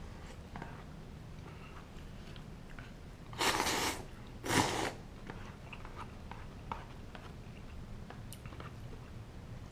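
A person eating miso ramen: two loud slurps from the bowl held at the mouth, one right after the other, with quiet chewing and small mouth clicks around them.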